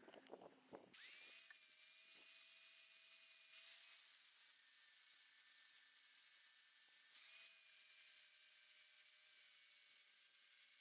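An electric grinder whining up to speed about a second in and then grinding steel with a steady high hiss; the motor's whine swells up again later on.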